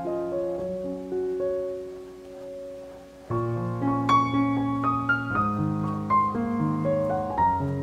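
Background piano music: a few sustained notes played softly, then fuller with low bass notes from about three seconds in.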